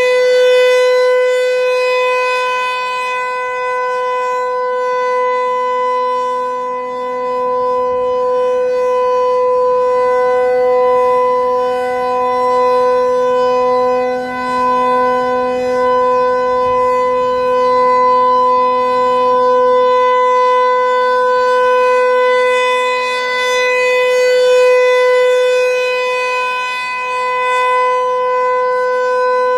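Federal Signal 508-128 single-tone chopper siren sounding its steady Alert signal for a test. It holds one unwavering pitch with no rise or fall, its loudness swelling and dipping slightly.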